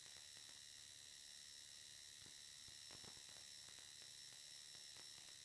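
Near silence: a faint steady electronic hiss and hum with a thin high whine, broken by a few faint ticks.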